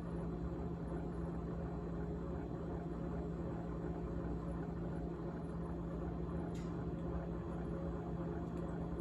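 GE GTH18XCTZRBB refrigerator running with a steady hum and a rattle, with a single short click about six and a half seconds in.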